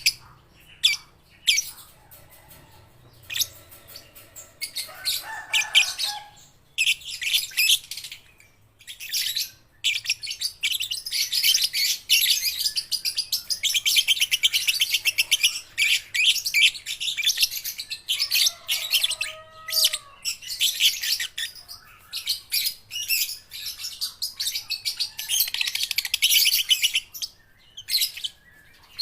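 Young lovebirds chattering in long runs of rapid, shrill chirps broken by short pauses, with a few lower calls mixed in.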